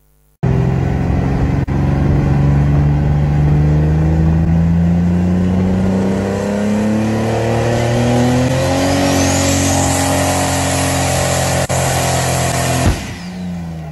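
Pulling tractor's engine run hard while stationary, its pitch climbing slowly and steadily under load as it pours out black smoke. Near the end there is a sudden bang, and the engine sound drops away.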